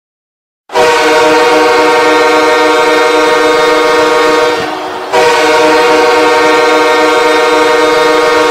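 Los Angeles Kings arena goal horn sounding two long, loud, steady blasts of about four seconds each, with a short break between them.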